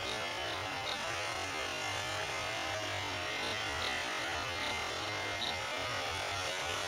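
Steady buzzing drone of a DHC-3 Otter float plane's engine and propeller with a hiss of spray as the floats plough through the water on the landing run.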